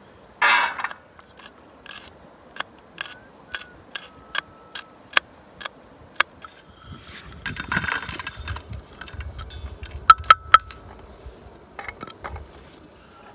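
Metal cooking utensils tapping and clinking at irregular intervals, several strikes leaving a brief ringing tone. There is a short crunching burst near the start and a scraping rustle about eight seconds in.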